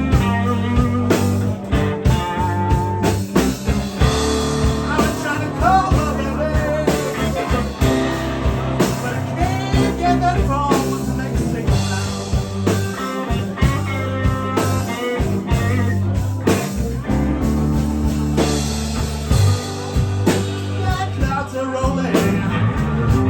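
Live blues band playing a slow blues: an electric guitar leads with bent notes over bass guitar and drums.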